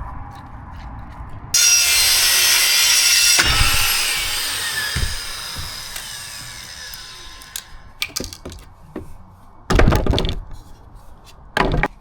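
Rotten timber decking being prised up: a sudden loud squeal and creak of boards and screws tearing free about one and a half seconds in, fading away over several seconds, then heavy thuds of boards being dropped near the end.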